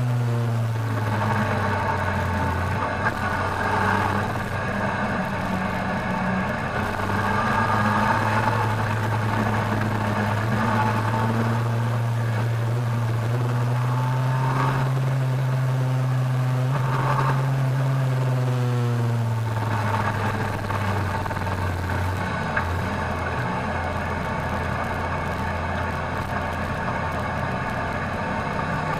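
Kawasaki ZRX1200R motorcycle's inline-four engine running under way, heard from the rider's seat. The engine note holds steady, rises a little, then falls about two-thirds of the way through and runs on at lower revs.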